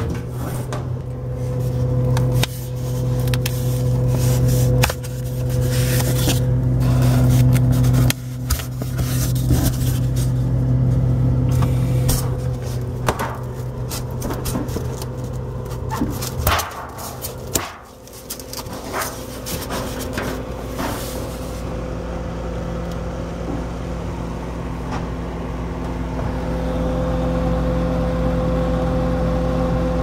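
Plastic crisper drawers and the cover panel inside a GE Profile refrigerator being handled and pulled loose, with repeated clicks, knocks and scrapes. Under them is a steady low hum from the refrigerator running, a unit that would not shut off because ice had built up on its evaporator coils. The hum dips briefly a little past halfway.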